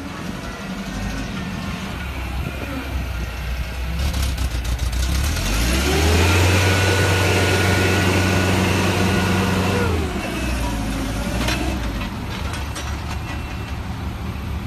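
Forklift engine idling, then revving up about five seconds in and holding higher with a steady whine for some four seconds as the hydraulics raise the paper roll clamp, before dropping back to idle.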